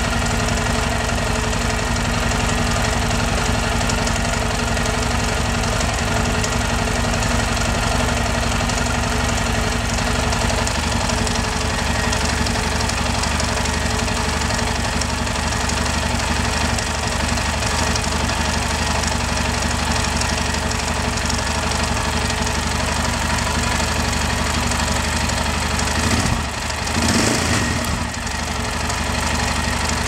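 Yamaha Ténéré motorcycle engine running steadily at idle with a strange noise from inside the engine that the owner is trying to track down. The sound briefly surges and changes about three seconds before the end.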